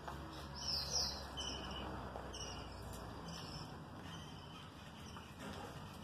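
Budgerigars chirping: short high chirps repeating about once a second, with a louder falling chirp about a second in.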